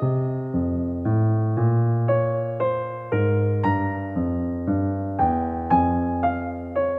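Background music: a gentle melody of struck, decaying keyboard notes over a bass line, a new note about every half second.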